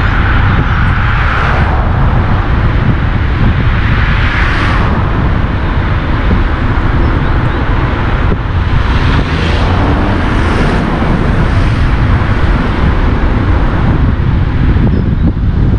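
Steady road and wind noise of a car driving along a city street: a loud low rumble under a rushing hiss that swells several times.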